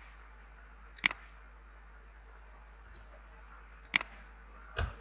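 Sharp clicks of a computer mouse or keyboard being worked while code is edited: two loud single clicks, about a second in and about four seconds in, a faint tick between them, and a duller knock just before the end.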